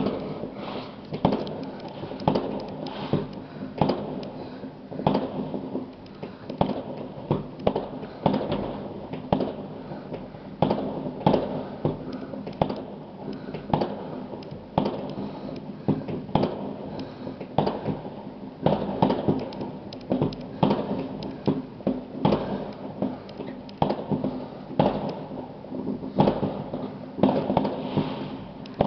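Aerial fireworks going off in a dense, irregular series of bangs and pops, several a second.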